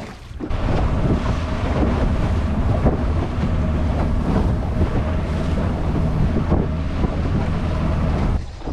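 Outboard motor of a small boat running under way, with water rushing past the hull and wind on the microphone. It starts about half a second in and cuts off near the end.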